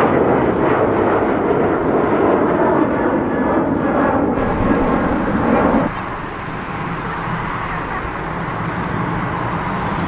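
Jet noise from a Boeing 737-800's CFM56 engines climbing out after takeoff. About six seconds in it cuts suddenly to the quieter, steadier run-up of a Boeing 787-8's engines at the start of its takeoff roll.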